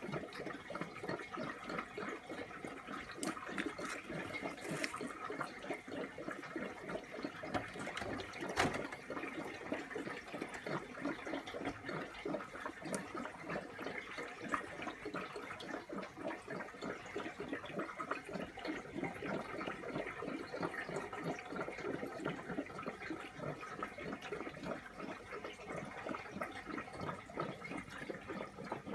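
Aquarium filtration running: a steady, busy trickling and bubbling of circulating water in the tank, with one brief knock about eight and a half seconds in.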